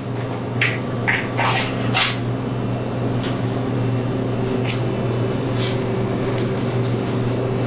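A steady low mechanical hum, with about six brief swishing scrapes as a boning knife slices through fat and membrane to take the flank off a hanging beef hindquarter.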